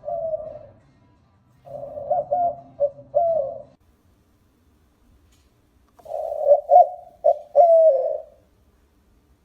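Dove cooing in three phrases: one trailing off at the very start, one about two seconds in and one about six seconds in, each a couple of seconds of short coos that rise and fall in pitch.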